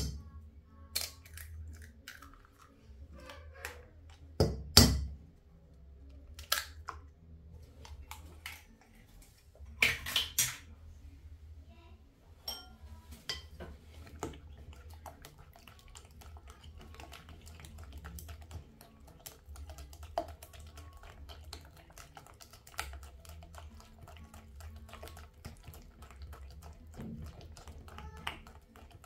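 Eggs cracked on the rim of a bowl, a few sharp knocks in the first part, then a fork beating them into mashed banana batter with fast, light clicking against the bowl.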